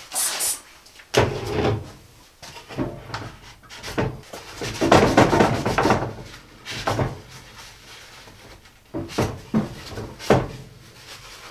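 Plywood boards of a small wooden box being handled and pressed together by hand: a series of hollow wooden knocks and bumps, with a louder stretch of rubbing for about two seconds around the middle.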